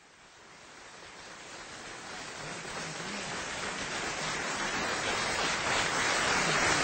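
Theatre audience applauding, a dense even clatter that fades in from silence and grows steadily louder.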